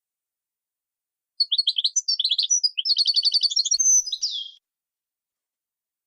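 A songbird sings one fast phrase about three seconds long, starting about a second and a half in. It opens with quick varied chirps, runs into a rapid trill of repeated notes, and ends on a falling slurred note.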